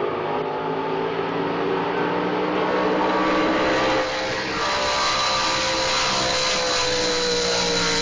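Drag boat's engine running hard across the water; about halfway through its pitch starts falling steadily as the boat comes off its run and slows.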